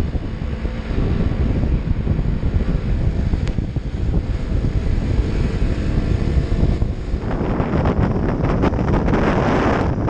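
Wind buffeting the camera microphone of a moving sport motorcycle, over the low rumble of the bike running at road speed. The wind noise gets louder and fluttery about seven seconds in.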